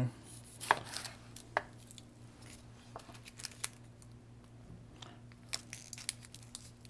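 A couple of knife cuts through a yellow onion onto a wooden cutting board in the first two seconds, then the dry, papery onion skin crackling and tearing in short bursts as it is peeled off by hand.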